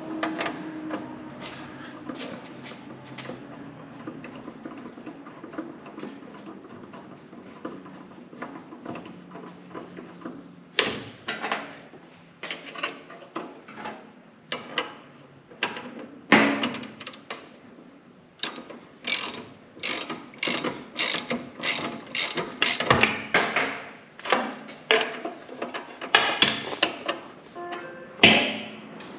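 Hand ratchet wrench clicking as nuts or bolts are run down, in repeated strokes that are sparse at first and come quickly and steadily from about eleven seconds in.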